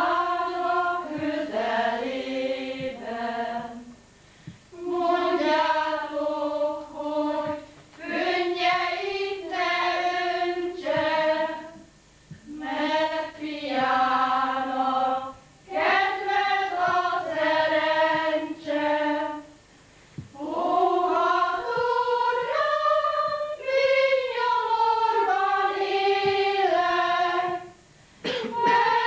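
Choir singing in phrases a few seconds long, with brief pauses between them.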